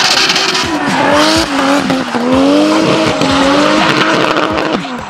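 Drift car's engine revving up and down, its pitch dipping about two seconds in and climbing again, as its spinning rear tyres squeal through a slide.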